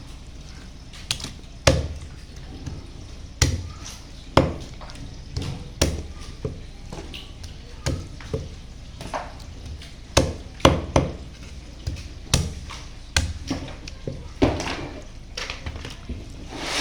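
A knife chopping through fresh chicken onto a cutting board: irregular sharp chops with a dull thud, about one or two a second, some in quick pairs.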